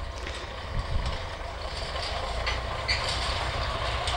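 Diesel tractor engine running steadily, gradually growing louder as it comes closer.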